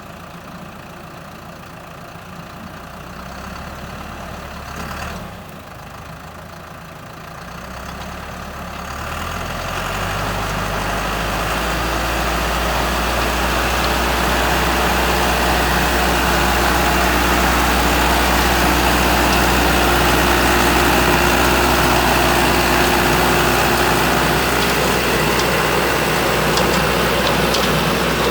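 Rotary tiller's engine running low at first, picking up about three seconds in and dropping briefly near five seconds. It revs up around nine seconds in and then runs steadily at higher speed under load, with a rushing, churning noise over the engine note as the tines cut phacelia green manure into the soil.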